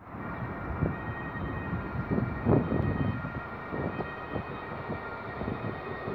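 Wind buffeting the microphone in uneven gusts over the faint, distant running of an approaching train hauled by an electric locomotive, with several faint steady high tones held throughout.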